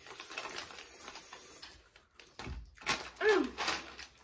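Foil potato chip bags rustling and crackling as they are handled, in short clusters of crinkly clicks in the second half. A brief vocal sound with a falling pitch comes about three seconds in.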